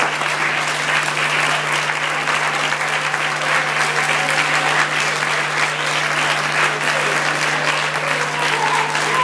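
A congregation clapping steadily, many hands at once, with music underneath.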